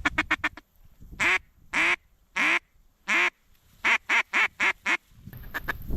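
Mallard-style duck quacking: a quick run of five short quacks, then four long drawn-out quacks a little over half a second apart, then a faster run of five shorter quacks. Wind noise rises near the end.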